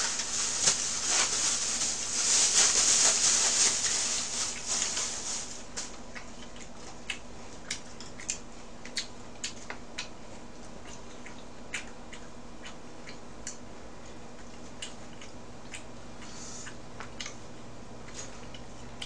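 Table sounds during a meal: a few seconds of rustling noise at the start, then scattered light clicks of chopsticks against plates and dishes as food is picked up and wrapped in lettuce.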